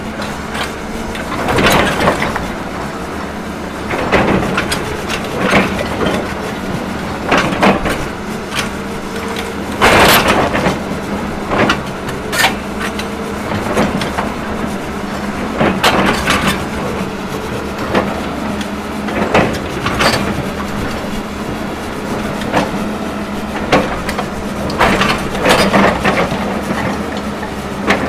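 Excavator engine running under load while its ripper tooth scrapes and breaks frozen ground, giving repeated loud grinding crunches every one to three seconds over the steady engine hum. The loudest crunch comes about ten seconds in. The ground is frozen hard and barely gives.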